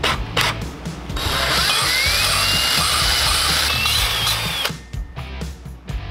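Cordless drill spinning an engine valve against its seat with valve grinding compound, lapping the valve so it seals for compression. A few short spurts come first, then a longer gritty grinding run of about three and a half seconds with the drill's whine rising. It stops, and a few light clicks follow.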